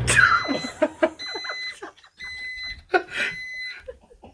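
Microwave oven finishing its cycle: its running hum cuts off, then it sounds four half-second end-of-cycle beeps, with scattered clicks and knocks in between.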